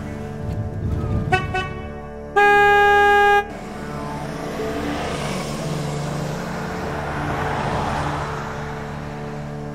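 Car horn: two short toots, then one loud, steady blast about a second long. After it, a vehicle's broad road noise swells and fades.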